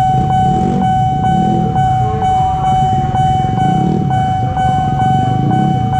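Railway level-crossing warning alarm sounding: a steady electronic tone with a short click about twice a second. Under it is the low rumble of waiting motorcycle engines.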